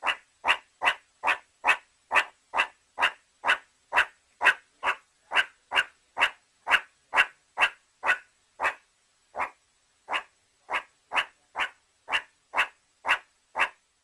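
Meerkat giving a long run of short, sharp calls, evenly spaced at about two a second, slowing slightly in the middle before picking up again.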